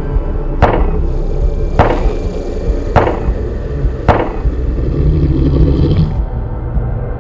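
Four sharp knocks, evenly spaced a little over a second apart, each ringing briefly, over a steady low rumble.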